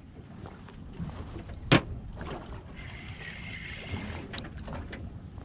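Steady sound of water and wind around a small drifting fishing boat, with one sharp click or knock about two seconds in.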